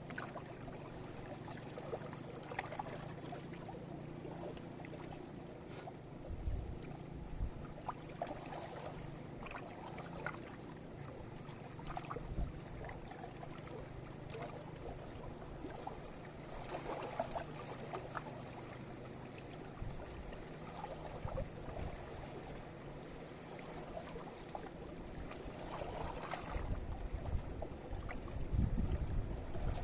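River water flowing, under a steady low hum, with gusts of wind buffeting the microphone about six seconds in and more strongly near the end.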